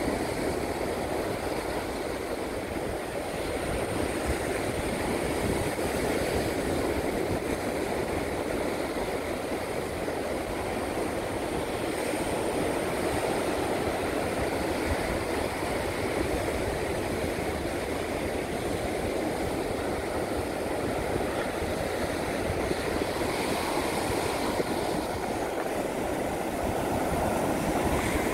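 Ocean surf breaking in a steady rush, swelling and easing slowly every several seconds.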